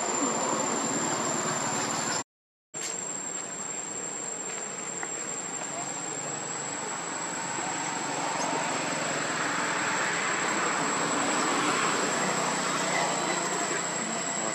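Insects droning in a tropical forest: a thin, steady, high-pitched whine held throughout over an even hiss that swells a little in the second half. The sound cuts out completely for a moment about two seconds in.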